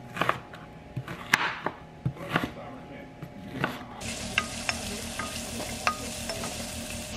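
A knife chopping onion on a wooden cutting board, a few sharp knocks. About four seconds in, diced onion sizzles steadily in a frying pan as a wooden spoon stirs it, with light clicks.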